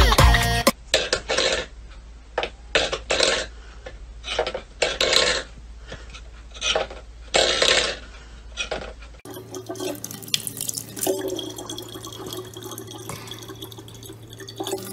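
Several short knocks and scrapes of steel pet food bowls on a wooden floor. About nine seconds in, these give way to a thin stream of tap water running steadily into a plastic water jug.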